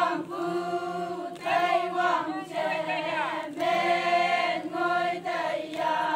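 A group of women singing a Konyak Naga folk song together, unaccompanied, in short chanted phrases with brief breaks between them.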